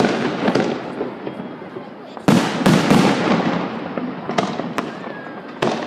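Fireworks salute: a series of sharp bangs from bursting shells, each trailing off into a rolling echo. The loudest bangs come in a quick cluster a little past two seconds in, with a few more spread out toward the end.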